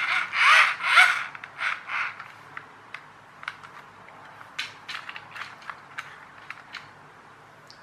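Hard plastic RC toy car handled, its wheel turned by hand against the gearbox: a few loud creaking, rasping bursts in the first two seconds, then scattered light plastic clicks and knocks.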